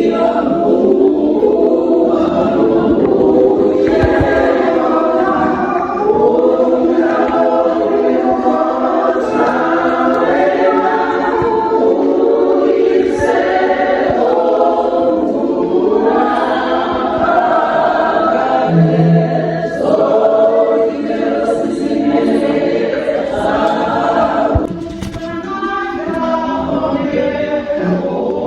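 A choir of many voices singing a gospel hymn together, steadily through the whole stretch.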